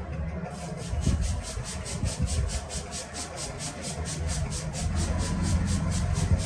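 Massage sounds: rhythmic strokes on the body at about five a second over a low, steady rumble.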